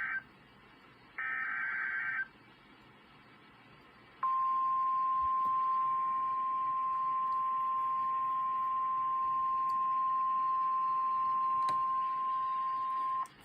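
The closing bursts of an Emergency Alert System SAME data header, buzzy digital screeches about a second long, then after a short pause NOAA Weather Radio's 1050 Hz warning alarm tone, one steady high tone held about nine seconds. It announces a warning broadcast, here a severe thunderstorm warning.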